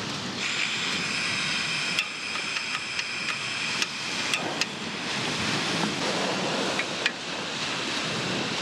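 Portable gas-cartridge camping stove burning: the burner's steady gas hiss, with a few sharp clicks over it.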